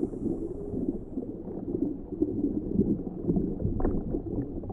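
Scuba diver's exhaled bubbles gurgling underwater, an irregular low rumble.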